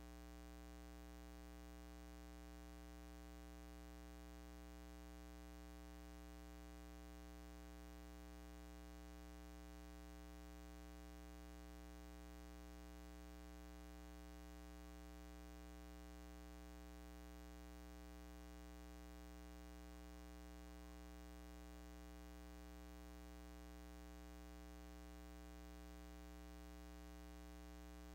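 Near silence with a steady, unchanging low hum and its overtones.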